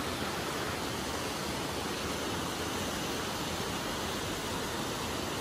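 River rushing over rapids in a rocky gorge: a steady, even hiss of white water.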